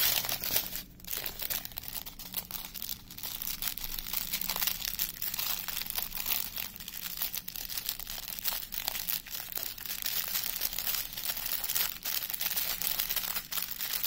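Small plastic resealable bags crinkling and rustling as they are handled, with a steady run of crackly rustles.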